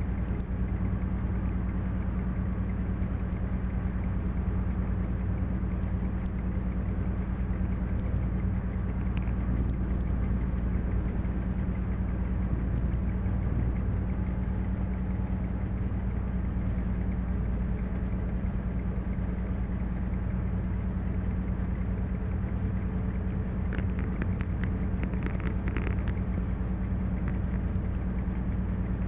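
Class 731 diesel locomotive's engine running steadily at a constant speed, heard from inside the cab while banking a heavy freight train. A brief run of sharp clicks sounds near the end.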